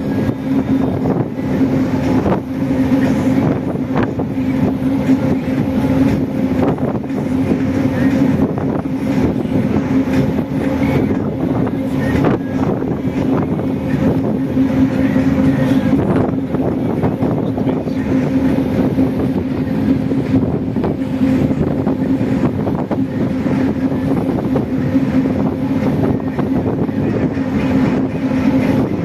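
Pleasure boat's engine running steadily: a constant low hum over an even rushing noise.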